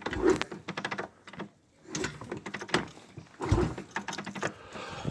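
Irregular knocks and clicks, with a quick rattling run of clicks about a second in.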